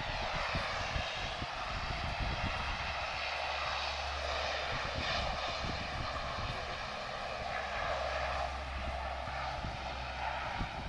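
Lockheed C-130 Hercules's four Allison T56 turboprop engines running steadily as it taxis: an even propeller drone with a high whine over it.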